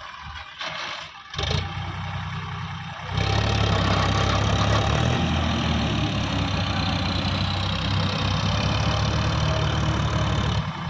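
Heavy diesel engine running at low speed, with a couple of sharp knocks about a second in, then revving up about three seconds in and holding at a higher, steady speed under load.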